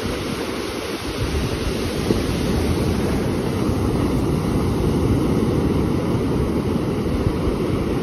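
Sea surf on a sandy beach: low waves breaking and their foam washing up the sand in a steady rush, with wind rumbling on the microphone.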